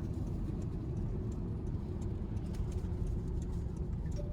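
Road and tyre noise inside the cabin of a Honda StepWGN minivan on the move: a steady low rumble with faint light ticks scattered through it.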